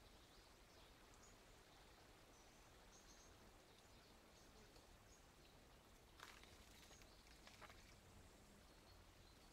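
Near silence: faint outdoor ambience, with a few short faint high chirps and a couple of faint clicks about six and seven and a half seconds in.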